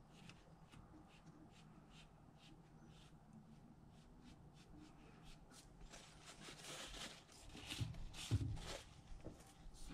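Faint scratchy rubbing of a paper towel wiped over a deer skull, working a bead of white painter's caulk into a crack in the bone. The scuffing grows louder about six seconds in, with a dull thump a little after eight seconds.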